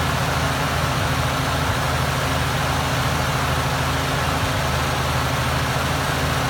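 1950 Ford 8N tractor's four-cylinder flathead engine running steadily at a low, even speed.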